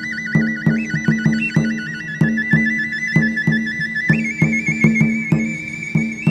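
Music of a high flute trilling rapidly between two notes, stepping up to a higher, steadier note about four seconds in, over a steady drum beat of about three strokes a second.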